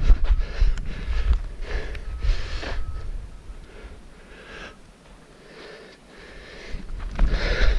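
A runner breathing hard, a heavy breath roughly once a second, out of breath mid-race. Wind rumble on the microphone fades away in the middle and returns near the end.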